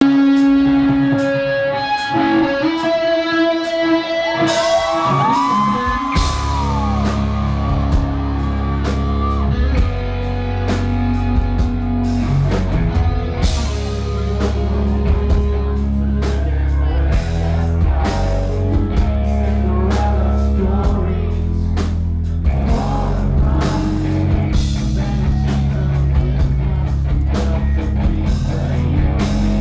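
Live rock band playing a song: a few seconds of sparse held notes, then about six seconds in the full band comes in loud with electric guitars, bass and drums under a male singer.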